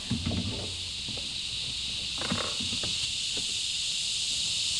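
Loud, steady chorus of cicadas, a continuous high-pitched shrill hiss, with a few faint short clicks and knocks about two seconds in.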